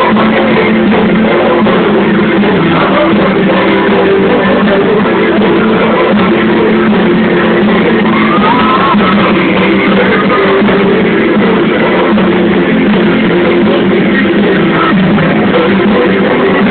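A pop-rock band playing loud through a concert PA: guitar over a steady backing, with a singer's voice gliding in and out.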